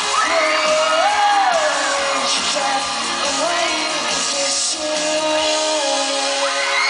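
Live pop-rock band playing through a loud PA, with singing over it and shouts from the crowd. The deep bass drops out about five and a half seconds in.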